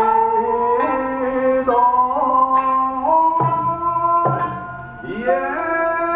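Ryukyuan classical dance music: a singer holding long, slowly gliding notes over a plucked sanshin struck roughly once a second. About five seconds in the music dips and the voice slides upward into a new note.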